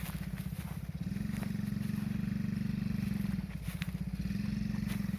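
Small 50cc engine of a children's quad bike running. It gets louder as the throttle opens about a second in, eases off around three and a half seconds, then picks up again.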